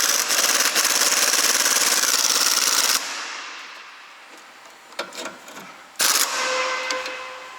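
Small pneumatic impact wrench hammering in a rapid rattle for about three seconds, then a second short burst about six seconds in. It is working on the seized nut of a front stabilizer link, which does not break loose.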